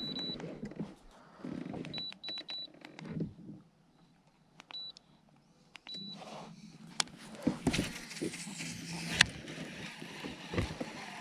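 Several short, high electronic beeps, then a steady low hum with a few sharp clicks.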